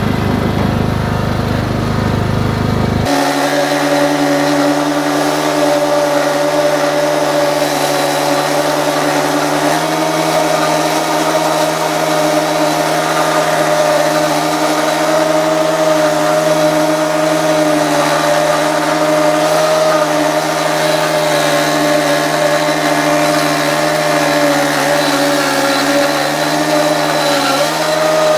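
Cub Cadet riding mower engine running steadily under load, holding an even pitch with slight shifts about ten seconds in and near the end. The first three seconds are a loud low rumble that changes suddenly into the steadier engine hum.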